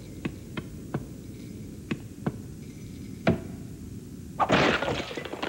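Cartoon sound effects: about six sharp clicks and knocks at uneven intervals, then a short loud rush of noise about four and a half seconds in.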